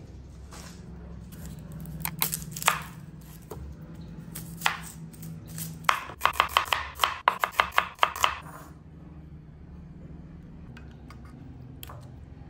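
Kitchen knife chopping an onion on a plastic cutting board: a few separate cuts, then a quick run of about a dozen sharp knocks of the blade on the board, about four a second, from about six seconds in.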